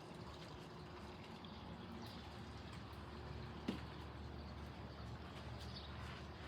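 Faint, steady background noise with one sharp click a little past halfway.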